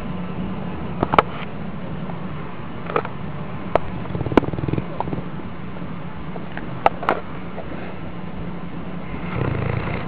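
Bullmastiff snoring: a steady low drone that swells a little near the end, with a few sharp clicks scattered through it.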